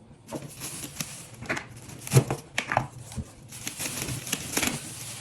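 Handling noise: irregular clicks and knocks with rustling, the sharpest knock about two seconds in.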